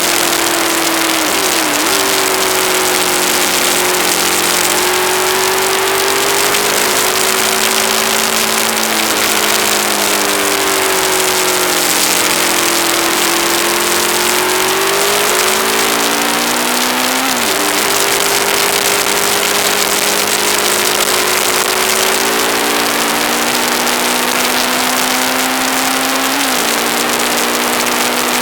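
Aprilia ETV1000 Caponord's V-twin engine under way, its pitch climbing and then dropping sharply at each of several gear changes, with a steady hiss over it.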